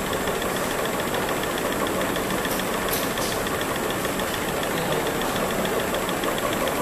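Mini slitting rewinder machine running steadily while slitting film into strips and winding them onto cores: a continuous mechanical whir with a thin high whine, and two faint ticks about two and a half and three seconds in.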